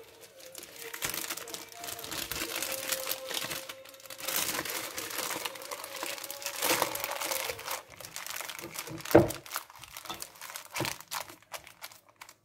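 Thin plastic bag crinkling and rustling as hands work a ball of semolina dough into it, with a couple of dull thumps about three-quarters of the way through.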